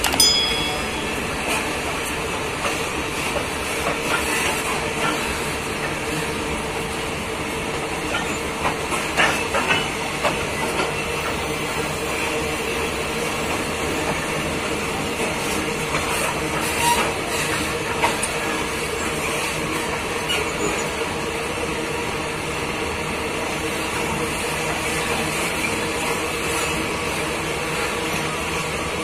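Open freight wagons of a long train rolling steadily past: a continuous rumble and hiss of steel wheels on rail with a steady hum. A few sharp clanks come about nine and seventeen seconds in.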